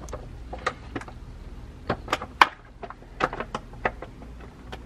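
Antifreeze being poured from a plastic measuring jug into a car's coolant expansion tank: a dozen or so irregular sharp clicks and taps from the jug and the pour, over a low steady hum.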